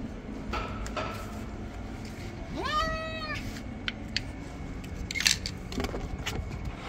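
A cat gives one meow about two and a half seconds in, rising in pitch and then falling away. Several short, sharp clicks and taps come around it, the loudest a little after the five-second mark.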